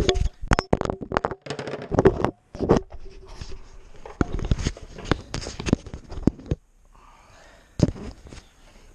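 Metal hand tools, sockets and a ratchet, clinking and knocking against each other in a quick run of sharp knocks, a few with a brief metallic ring. It goes quieter about two-thirds of the way through, with one more knock near the end.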